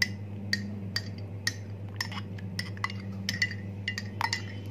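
A metal spoon stirring in a glass mug of hot water, clinking against the glass a few times a second in an uneven rhythm, over a steady low hum.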